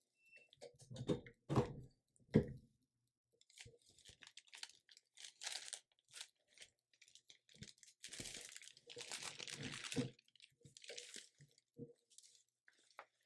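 A few faint knocks as the heat press handle and platen are brought down and moved, then rustling and crinkling as a Teflon sheet and paper are handled and lifted off the pressed shirt.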